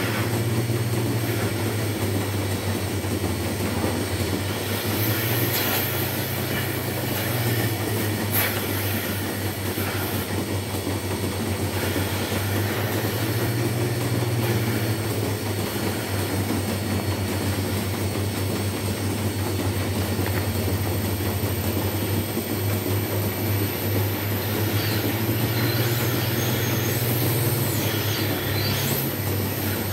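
Dairy milking plant machinery running: a steady mechanical hum and rumble with a low drone, and faint high squeals coming and going over it.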